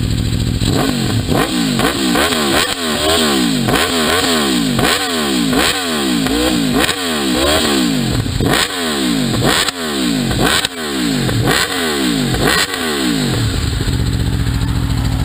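Aprilia RSV4 RR's V4 engine revved in about a dozen quick throttle blips, roughly one a second, each rising and dropping straight back, then settling to idle near the end.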